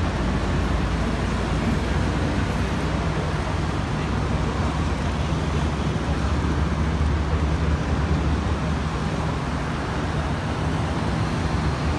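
Steady road traffic on a busy city street: cars and buses passing as a continuous deep rumble.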